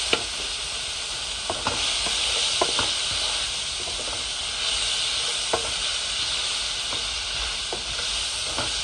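Sliced onions and green and red peppers sizzling steadily in hot oil in a pan, stirred with a wooden spatula that knocks and scrapes against the pan a few times.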